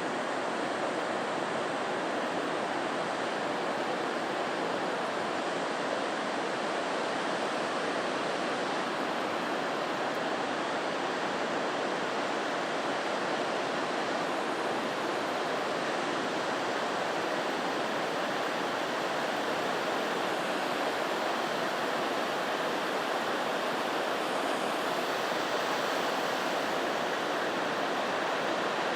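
Steady heavy rain: an even, unbroken hiss with no rise and fall.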